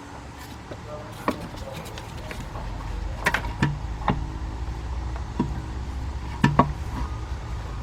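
Scattered knocks and clicks of an intake plenum being worked into position on the engine, with a low rumble coming in about two and a half seconds in.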